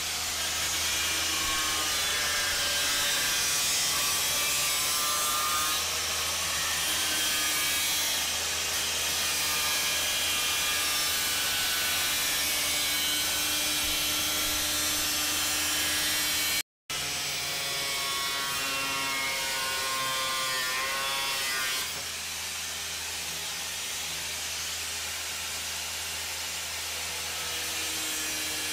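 Small angle grinder with a cutting disc trimming the edge of an aircraft engine cowling, its whine sliding up and down in pitch as the disc bites into the material. The sound drops out for an instant about two-thirds of the way through.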